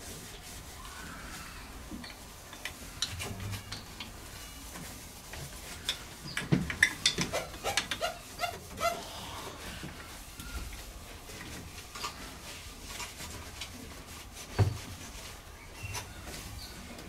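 Hand tools working on a stopped steam engine's low-pressure crosshead wrist pin bearing: scattered metallic clicks and knocks of a wrench on the fittings. There is a busy flurry of clinks about six to nine seconds in and a single louder knock near the end.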